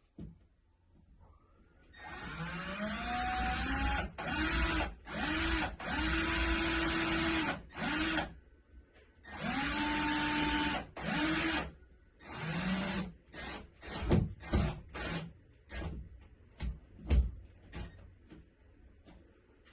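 Power drill working into a wall in repeated bursts of one to two seconds, its motor whining up to speed each time, then a run of shorter, quicker pulses near the end.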